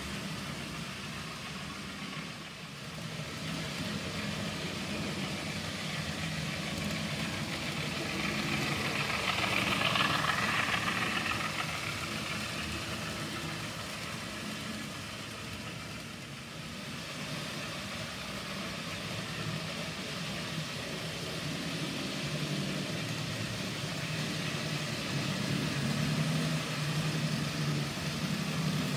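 N gauge model trains running on the layout: the steady whir of small locomotive motors and the rattle of wheels on the track. It swells louder and brighter about ten seconds in.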